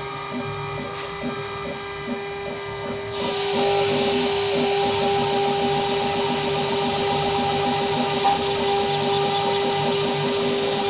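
Spindle of a mini CNC router running with a steady whine as a small engraving bit mills letters into an aluminium plate. About three seconds in, the sound suddenly gets much louder and hissier and stays that way.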